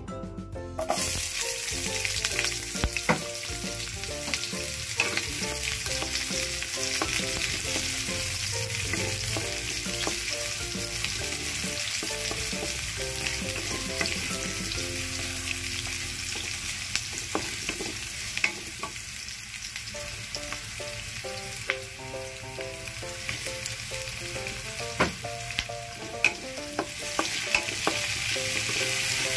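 Food sizzling in hot oil in a pan, starting suddenly about a second in, stirred with a utensil that clicks against the pan now and then.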